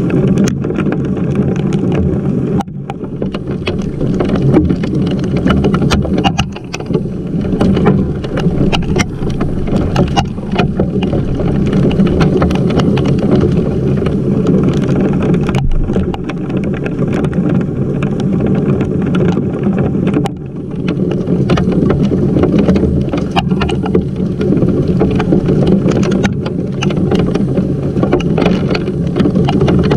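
Heavy rain and hail hitting right at the camera: a dense, steady rush with many sharp ticks of drops and hailstones striking the camera and the wooden deck, easing briefly a few times.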